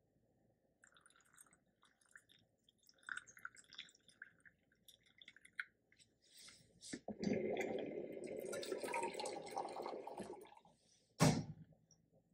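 Hot water poured from a small stainless steel cup into the top chamber of a South Indian coffee filter to brew coffee decoction: scattered trickles and drips at first, then a steady pour for about three and a half seconds. A single sharp clank near the end is the loudest sound.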